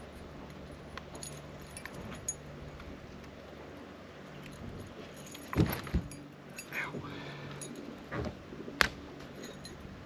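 Light metallic clinking and jingling of a fishing lure's hooks and hardware as a hooked bass is handled and unhooked, with a couple of dull thumps a little past the middle and a sharp click near the end, over a faint steady low hum.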